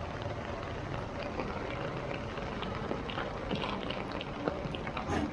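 Heavy rain falling steadily, with many drops spattering on hard surfaces over a low traffic rumble.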